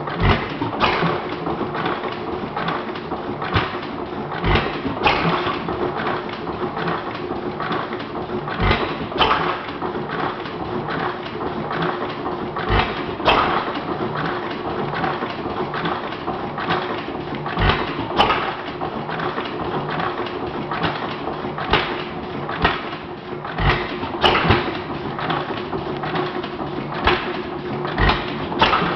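Model hit-and-miss gas engine with hot-tube ignition running: a sharp firing bang every four to five seconds, often two in quick succession, with steady mechanical clatter as it coasts between firings.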